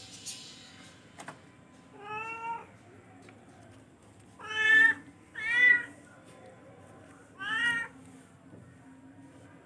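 Charcoal F1 kitten meowing: four short, high mews, the middle two loudest and close together.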